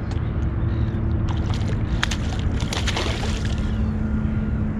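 A fish swirling and splashing at a soft-plastic lure on the water's surface: a short burst of splashing about two to three and a half seconds in, over a steady low rumble.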